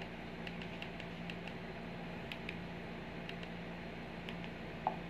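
Quiet room tone: a steady low hum with faint scattered ticks, and one brief short tone near the end.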